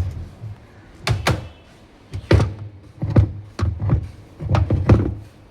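A run of irregular hard knocks and thunks, about a dozen, spaced unevenly.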